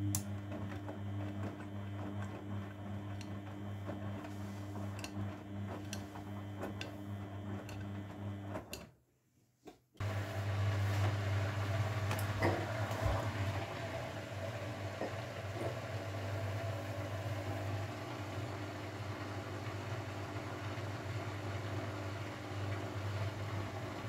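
Grundig front-loading washing machine running mid-wash: a steady low hum with scattered light clicks. It cuts out for about a second near nine seconds in, then resumes somewhat louder.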